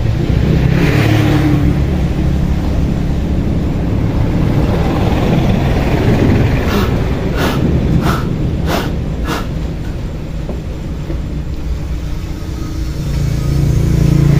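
An engine running steadily with a low hum. A handful of sharp clicks come in quick succession about halfway through, as metal parts are handled.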